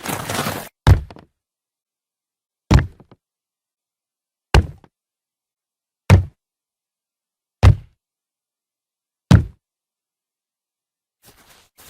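A brief hissing burst at the start, then six slow, heavy knocks or thuds, evenly spaced about a second and a half apart, each short and dull.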